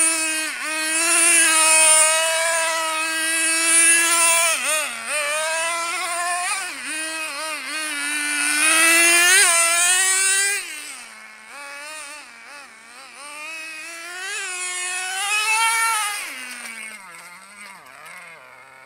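Small nitro engine of an HPI RS4 radio-controlled car running at high revs, its pitch rising and falling sharply as the throttle is worked. It turns quieter after about ten seconds as the car gets farther away, and its pitch drops low near the end.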